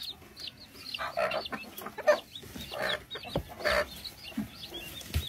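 Broody silkie hens clucking several times, roughly once a second, while their chicks peep thinly and rapidly underneath.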